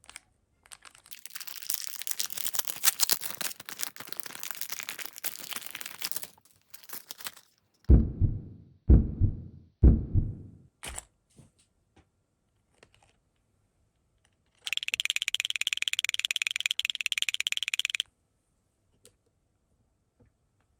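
Plastic packaging crinkling and tearing as a purchased item is unwrapped. Then come three low thumps about a second apart, and later a rapid buzzing rattle lasting about three seconds.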